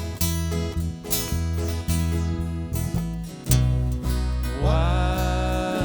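Acoustic guitar strumming chords over steady bass notes in a folk song played by a small band. A held melody line comes in about three and a half seconds in.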